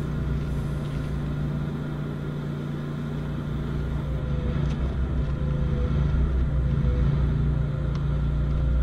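Steady low engine hum, an idling motor running at an even pitch with a faint wavering tone above it.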